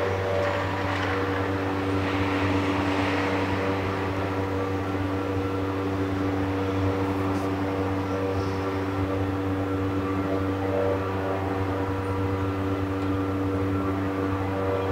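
Steady electronic drone from an electric guitar left sounding through its amplifier: a low hum under a stack of evenly spaced held tones with a noisy hiss on top, unchanging throughout.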